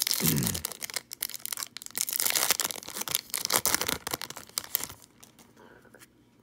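Wrapper of a 2018 Topps Gallery baseball card pack being torn open and crinkled by hand: a dense run of crackling and tearing for about five seconds, then it goes quiet.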